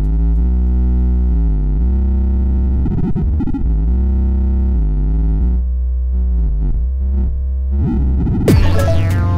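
Electronic music: sustained synthesizer chords over a heavy, steady bass. Near the end a busier section with sharp percussive hits comes in.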